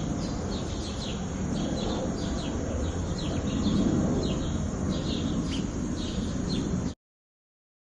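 Small birds chirping in short, quick downward chirps, about two a second, over a steady background rumble; the sound cuts off abruptly about seven seconds in.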